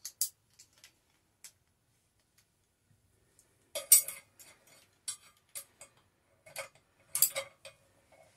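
Metal clicks and clinks of a gym cable-machine attachment being swapped: the handle unclipped from the cable and a straight bar clipped on. Scattered light clicks at first, then clusters of clanks about four seconds in and again about seven seconds in.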